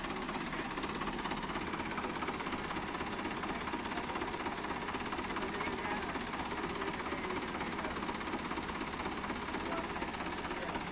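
Forklift engine running steadily with a fast, even rattle.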